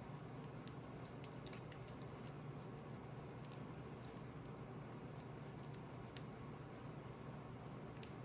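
Faint, irregular small clicks and plastic rustling of a trading card being worked into a tight-fitting plastic card sleeve.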